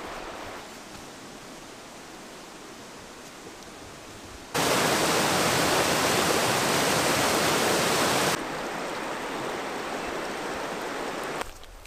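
Rushing water in three cuts: a fast mountain river running over stones, then a much louder forest waterfall cascade from about four and a half seconds in, then a river over stones again at a middle level from about eight seconds in, dropping away just before the end.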